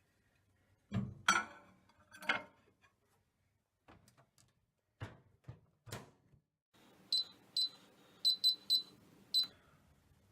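A microwave being loaded and started: knocks and clicks of the plate going in and the door shutting, then the oven's low running hum with six short high beeps from its controls in the last few seconds.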